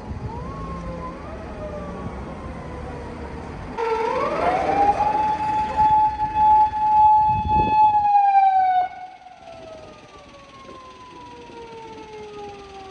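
Emergency vehicle siren wailing: about four seconds in it winds up sharply to a steady high note, holds it for about four seconds, then winds slowly down in pitch. A fainter siren sounds before it.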